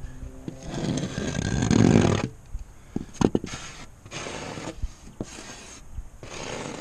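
A hand rubs across a freshly sanded model-aircraft wing surface. There is one long stroke of rubbing noise, then several shorter strokes. The sound is used to show how smooth the sanding has left the surface.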